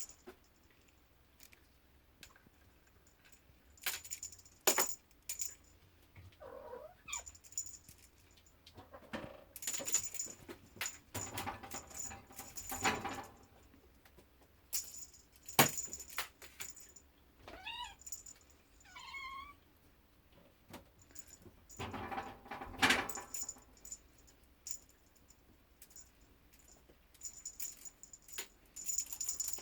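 A cat meowing a few short times about two-thirds of the way in, with a fainter call earlier, amid scattered light clicks, clinks and rustling.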